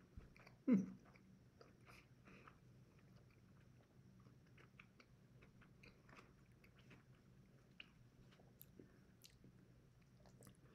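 Faint close-up chewing of a mouthful of burrito bowl: soft wet clicks and small crunches. About a second in comes a short, louder throat sound that drops in pitch.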